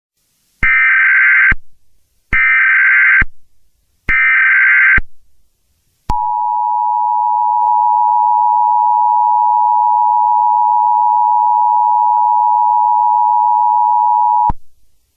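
Emergency Alert System opening tones: three short bursts of digital SAME header data, each just under a second, then the steady two-tone EAS attention signal held for about eight seconds before it cuts off. This sequence marks the start of a tornado emergency alert.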